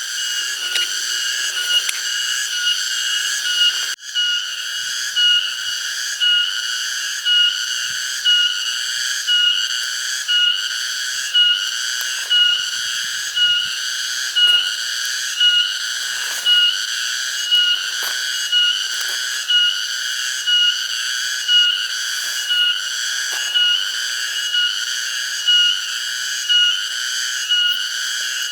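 Cicadas calling: a steady, high-pitched buzzing whine that swells in a regular pulse about once a second. It breaks off briefly about four seconds in.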